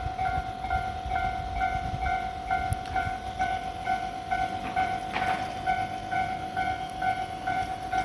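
Japanese railway level-crossing warning bell ringing at an even pace of about two strokes a second, the signal that the crossing is closed for an approaching train.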